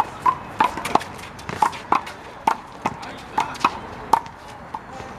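One-wall handball rally: a big blue rubber handball slapped by hand and smacking off the wall and the court, a string of sharp smacks about every half second.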